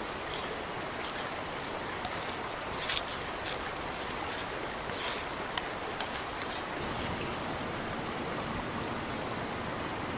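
A wooden spoon stirring thick sauce in a wooden bowl, giving a few soft scrapes and taps, over a steady rushing outdoor hiss.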